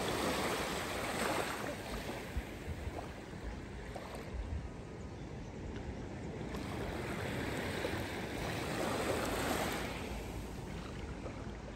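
Sea waves washing onto a beach. The surf swells near the start and again about eight to ten seconds in, easing between.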